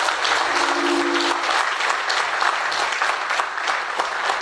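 Audience applauding, many hands clapping densely and steadily. A brief steady low tone sounds over the clapping about half a second in.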